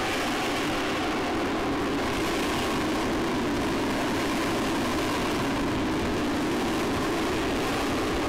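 Lockheed Martin F-35B's Pratt & Whitney F135 turbofan jet engine running in flight, a steady rushing noise with faint steady tones in it.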